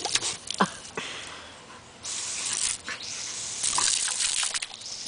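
Water hissing from a garden hose spray nozzle and splashing as an Australian Cattle Dog bites and snaps at the jet, with quick wet splats and clicks throughout. The spray eases off briefly and comes back stronger about two seconds in.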